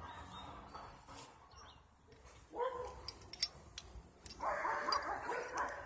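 A dog barking: a single bark about two and a half seconds in, then a quick run of barks near the end, with a few sharp clicks in between.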